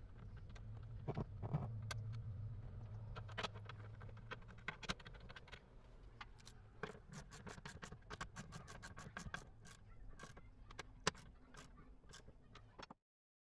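Faint metallic clicks and scrapes of bolts and hand tools as the parking-brake handle's backing plate is bolted to its lowering bracket, with a fast run of ticks in the second half. The sound cuts off suddenly near the end.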